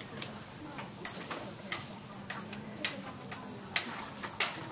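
A run of short, sharp light clicks, about two a second and roughly evenly spaced.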